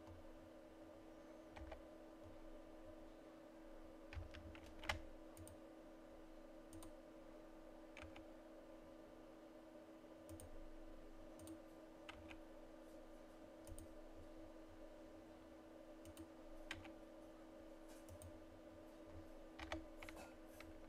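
Scattered clicks of a computer keyboard and mouse at irregular intervals, a few seconds apart with small clusters, over a faint steady hum.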